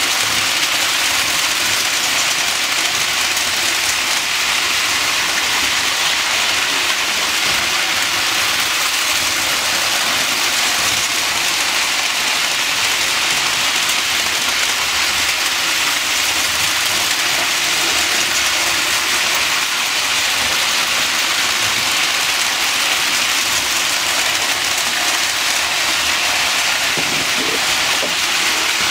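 Lionel O-gauge model trains running on three-rail track, a steady rolling whir of motors and metal wheels that stays even throughout.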